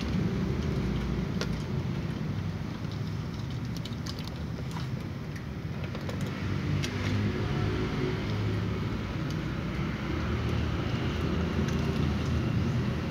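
Cats eating dry kibble from a plastic tray, with scattered small clicks and crunches over a steady low rumble.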